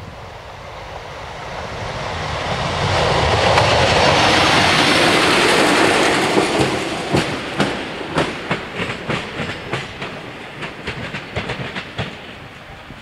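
Regional passenger train passing over the crossing: a rising rush of running noise that peaks about four to six seconds in, then a run of clicks as the wheels cross rail joints, thinning out near the end.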